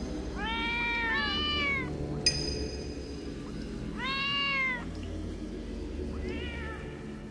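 A cat meowing four times, the last meow fainter, over a low steady droning background. A short, bright ringing clink sounds about two seconds in.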